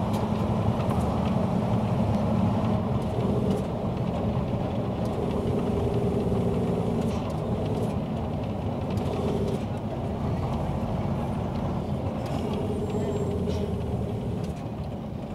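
Engine hum and tyre noise of a moving road vehicle heard from inside it, steady throughout, with a higher drone that comes and goes several times.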